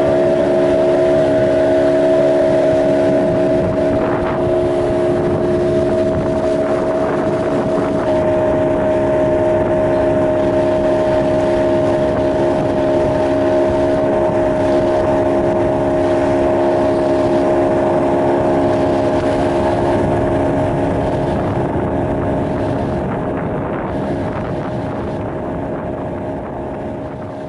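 Outboard motor running at a steady speed and pitch with the boat under way, a constant drone over rushing noise; it eases off slightly near the end.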